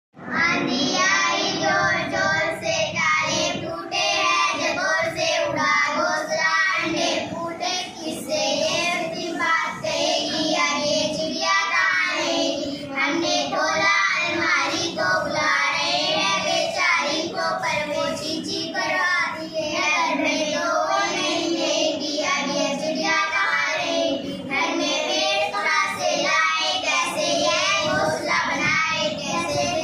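A child singing a Hindi school poem, phrase after phrase with short breaths between lines.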